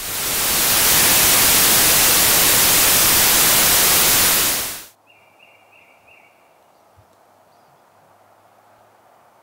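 Loud, steady TV-static hiss that cuts off abruptly about five seconds in. It is followed by faint outdoor ambience with a quick run of four short high chirps.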